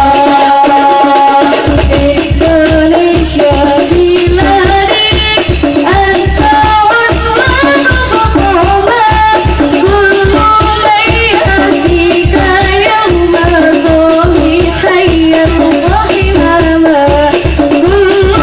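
Hadroh music: a voice singing a devotional song over an ensemble of frame drums playing a steady rhythm. The deep drum beats are out at first and come in about a second and a half in.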